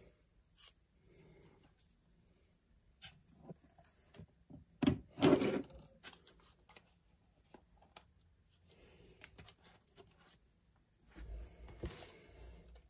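Handling noise from a metal lens-mount adapter: scattered small clicks and rubs as it is turned in the hands, with a louder rustle-and-knock about five seconds in as it is set down on the paper-covered table.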